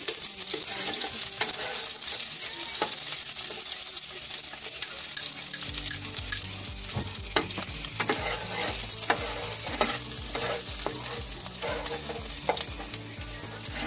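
Chopped aromatics sizzling in oil in a nonstick frying pan, stirred with a spatula that scrapes and taps against the pan, the taps coming more often in the second half.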